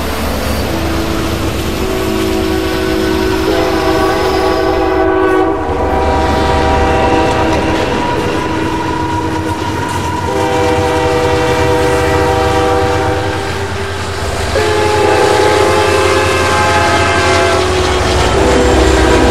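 Diesel freight locomotive's multi-note air horn sounding several long blasts, each a held chord, over the steady low rumble of the train.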